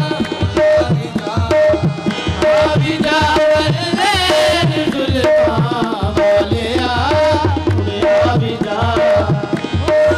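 Qawwali music: a tabla keeps a steady rhythm with a repeated ringing note, under harmonium and a wavering, gliding melody line.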